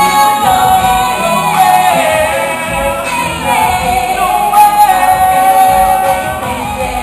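A group of singers performing a pop song live on microphones, amplified over musical accompaniment, with one voice holding a long note through the middle.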